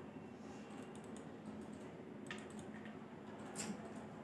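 A couple of faint computer mouse clicks, one a little over two seconds in and another about three and a half seconds in, over quiet room noise.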